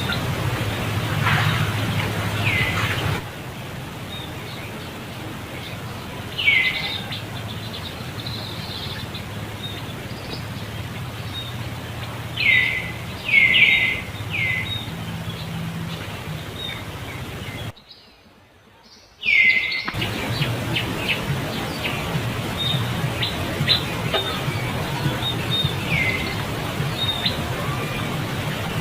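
Short high-pitched animal calls that fall in pitch, a few single ones and a quick run of four near the middle, over a steady low hum. The sound drops out briefly about two-thirds of the way through.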